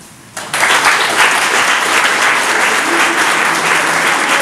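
Audience applauding, breaking out about half a second in and keeping up steadily.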